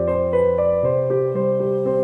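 Background piano music: a gentle melody of single held notes over low bass notes, the bass changing just under a second in.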